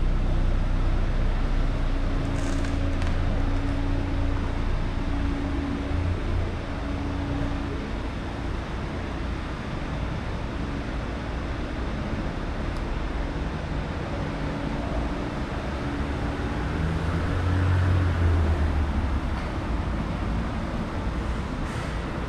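Road traffic: car engines running along a curbside lane, heard as a steady low hum over a wash of traffic noise, swelling briefly about three quarters of the way through.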